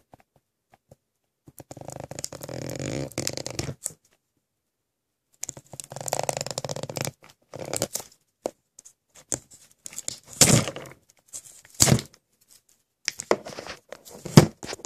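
Plastic shrink wrap on a Blu-ray case being slit with a pocket knife and torn and peeled off: several stretches of tearing and crinkling with short pauses between, and two sharp, louder snaps in the second half.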